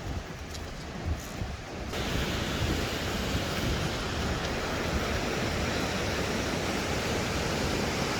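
Fast-flowing river water rushing, a steady noise that gets suddenly louder and fuller about two seconds in.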